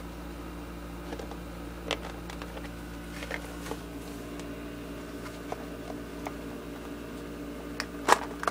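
Scattered faint clicks and taps of plastic packaging being handled and pried open, over a steady low hum, with a sharper cluster of clicks near the end.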